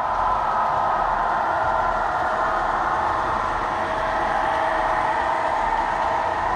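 Model diesel locomotives running steadily past, an even engine-like running sound with no change in pace.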